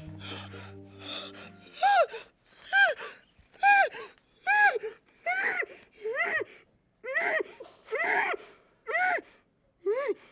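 A person sobbing in high-pitched cries, about one a second, each rising and then falling in pitch. A low background music bed fades out near the start.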